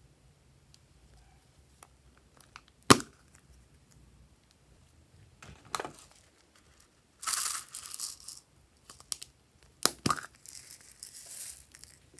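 A small plastic topping container clicking, then sequins and sprinkles being shaken out of it onto slime in two rattling pours, with a few sharp clicks between. One loud click comes about three seconds in.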